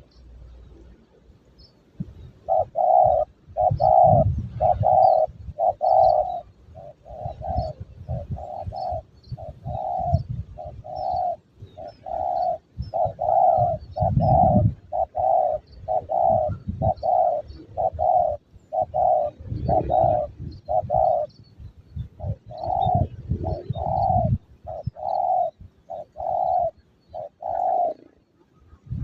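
Spotted dove cooing: a long run of short repeated coos, about one a second, with low rumbling wind on the microphone underneath.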